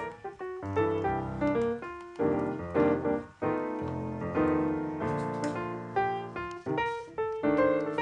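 Background piano music: a melody of struck notes that ring and fade one after another.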